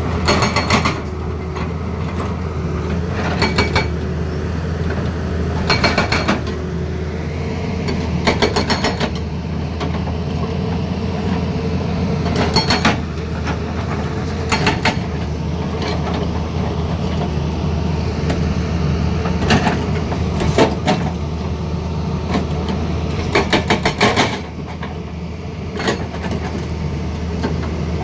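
An excavator's diesel engine running steadily, with short bursts of metal striking metal every few seconds. The longest burst comes about 23 seconds in, after which the engine sound drops a little.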